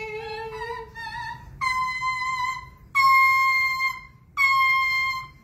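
Talking parrot singing on cue: a few wavering notes stepping up in pitch, then three long, steady, high notes held at the same pitch, each about a second long with short breaks between.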